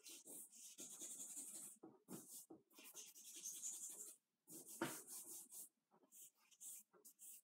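Faint scratchy strokes on drawing paper as a charcoal portrait is worked by hand: a run of rubbing strokes, a few lasting about a second and many shorter ones.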